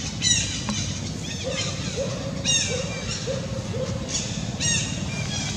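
Baby pig-tailed macaque giving four short, high-pitched calls that fall in pitch. Between them comes a run of short, lower notes repeating about twice a second, over a steady low rumble.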